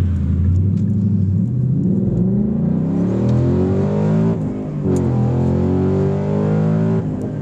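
Car engine accelerating: steady at first, then rising in pitch from about two seconds in, with a break like a gear change about four and a half seconds in before it pulls on.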